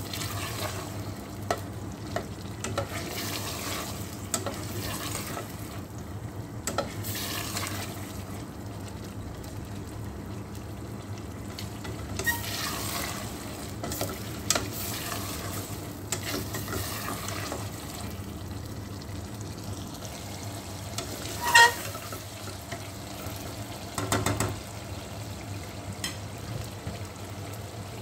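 A spatula stirring potato-and-pea curry in a stainless steel pot: scraping and light knocks against the pot over a steady sizzle and bubble of the sauce. A sharp, ringing clink against the pot about three-quarters of the way through is the loudest sound.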